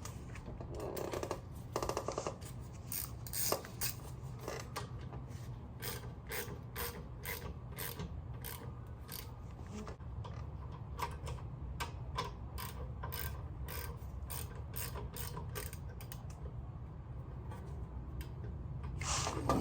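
Hand ratchet wrench clicking in a long series of strokes, about two or three clicks a second, over a steady low hum.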